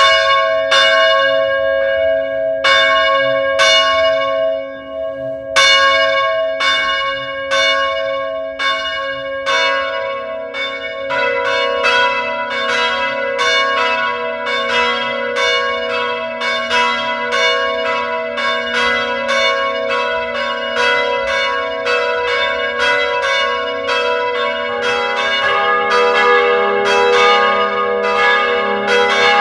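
Church bells ringing. At first the bells strike about once a second, with a short pause about five seconds in. From about ten seconds in, more bells at other pitches join, and the strokes come quicker and overlap as each one rings on.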